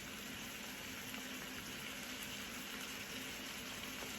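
A pan of chicken and mushrooms simmering steadily on low heat, with a soft bubbling sizzle as the frozen mushrooms cook in the water they have released.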